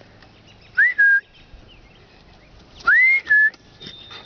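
A person whistling twice to call a dog: each whistle is a quick rising note followed by a short, slightly lower held note, the two about two seconds apart.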